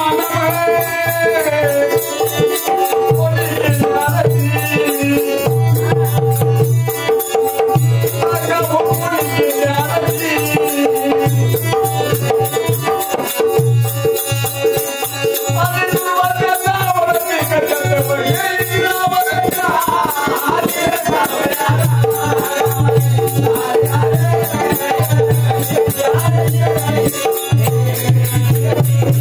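Marathi shahiri folk music: a melodic line that bends like a singing voice over a steady drone, a low drum beat, and a fast, continuous shaken-rattle rhythm.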